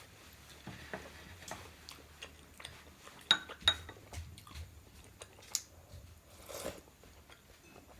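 Close-up eating sounds: soft chewing and small mouth clicks, with cutlery clinking against a dish twice in quick succession about three seconds in.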